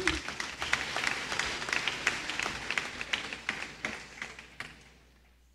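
Crowd applause: many hands clapping, starting strongly and dying away about five seconds in.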